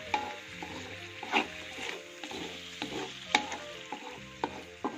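Wooden spatula stirring and scraping a spice paste around a metal wok, in irregular strokes with a few sharper knocks, over the steady sizzle of the paste frying in oil.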